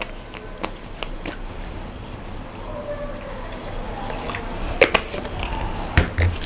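Water glugging out of a plastic bottle into a pan of thick simmering potato gravy, with a few sharp clicks scattered through and the loudest near the end.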